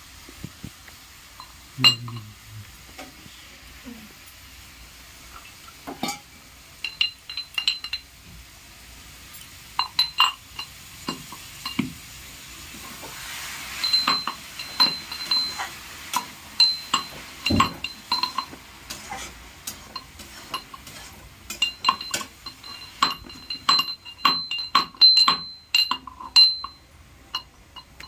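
Long steel spatula stirring and scraping in a steel kadhai on a gas stove: many sharp metallic clinks that ring briefly, coming thicker and faster in the second half.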